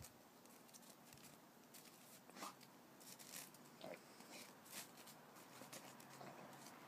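Faint, scattered crunches of a Tibetan Mastiff's paws and muzzle in packed snow as the dog noses about and turns in place, over near silence.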